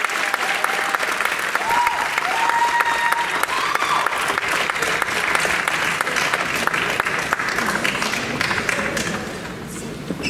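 Concert-hall audience applauding and cheering, with high cheers in the first few seconds; the applause dies down near the end.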